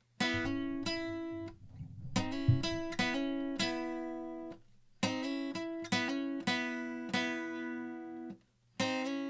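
Steel-string acoustic guitar, capoed at the second fret, playing a short lick with a slide and a hammer-on on the third string. The lick is played three times with short pauses between, and a fourth time starts near the end. One hard low thump comes about two and a half seconds in.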